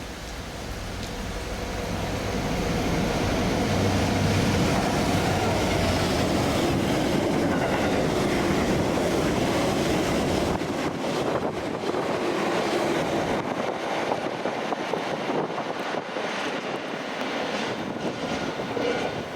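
A train passing through the station. Its rumble builds over the first few seconds and holds steady, then thins after about ten seconds to the rattle of wheels on the rails.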